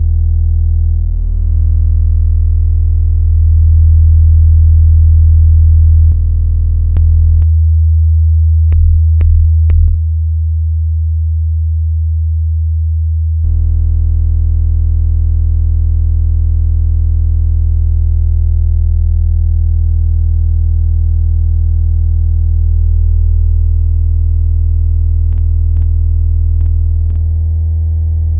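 Synthesized electronic drone: a loud, steady deep tone with a stack of overtones above it. About a quarter of the way in the overtones cut out for some six seconds, leaving only the low hum, and a few faint clicks come through.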